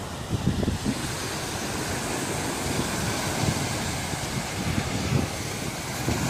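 Wind buffeting the microphone in irregular gusts over the steady hiss of surf washing onto a sand beach, the hiss growing stronger about a second in.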